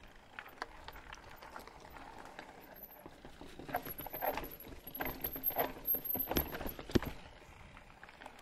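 Irregular knocking and clattering, loudest between about three and seven seconds in, with a faint high whine above it for part of that time.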